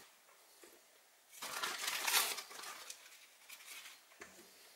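Plastic bag of powdered sugar crinkling as a teaspoon scoops sugar out of it. There is one rustle, about a second and a half long, starting a little over a second in.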